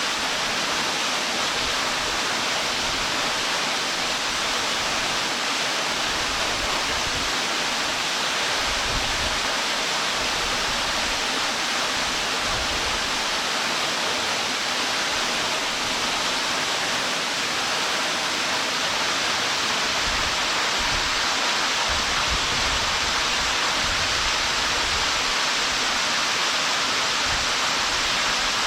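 Waterfall pouring steadily, a constant hiss of falling water, with intermittent low rumbles of wind on the microphone.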